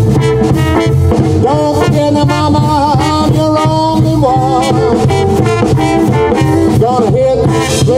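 Live jump blues band playing: a trombone carries the lead line with sliding, wavering notes over electric guitar and a drum kit.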